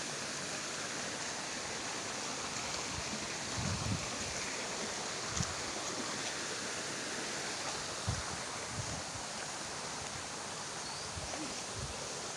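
Steady rush of flowing water from a rocky mountain stream, with a few short, dull low thumps scattered through it.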